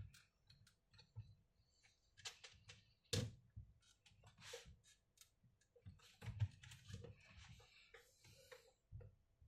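Quiet, irregular small clicks, taps and short scrapes of hands handling a laptop's plastic case and small tools, with a louder knock about three seconds in and another near six and a half seconds.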